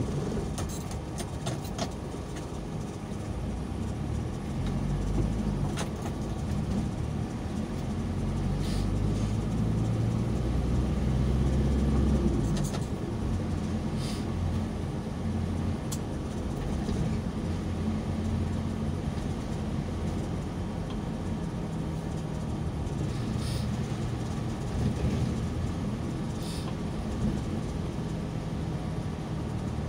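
Car driving, heard from inside the cabin: a steady low engine and road rumble that swells a little about a third of the way in, with a few short clicks or ticks scattered through.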